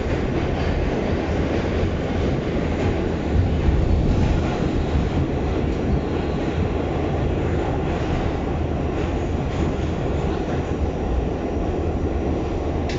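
New York City subway train running through a tunnel, heard from inside the car: a steady, loud rumble of wheels on rail, swelling briefly about three and a half seconds in.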